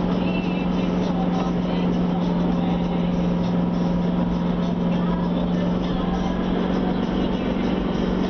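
Vehicle engine running at a steady pace with tyre and road noise while driving, heard from inside the cabin as a constant drone.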